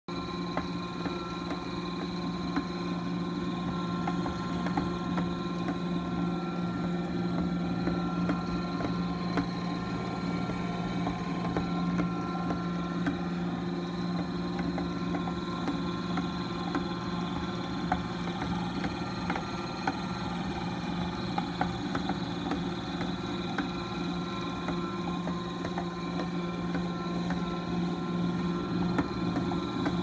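Haussler stand mixer running steadily while mixing dough in a stainless steel bowl: a constant motor hum with a steady higher whine over it and scattered faint ticks.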